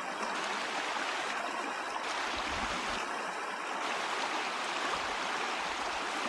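River water flowing in a steady rushing wash.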